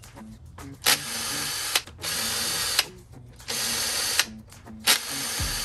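Ryobi cordless drill/driver running in four short bursts, each under a second with a sharp start and stop, driving bolts on the scooter's handlebar clamp.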